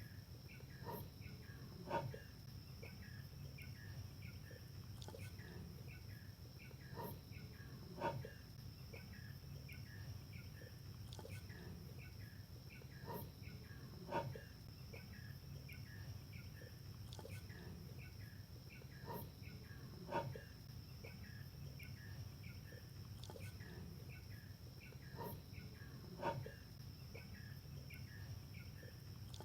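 Crickets chirping steadily, about two chirps a second, over a continuous high insect drone, with a short sharp sound repeating about every six seconds.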